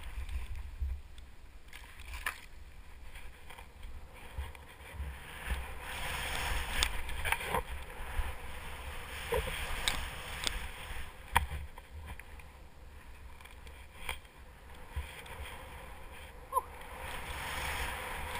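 Telemark skis hissing through soft powder snow, the hiss swelling and fading, with wind rumbling on the camera microphone and a few sharp clicks.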